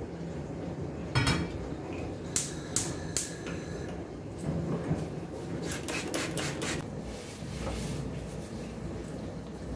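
Enamel Turkish double teapot set down on a gas hob's metal grate: a loud clank, then a few light metallic clinks with a brief ring. A quick run of sharp clicks follows a couple of seconds later, then a cloth wiping the countertop.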